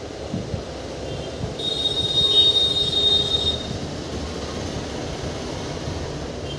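Train running with a steady low rumble, and a high, thin steel-wheel squeal for about two seconds starting about a second and a half in.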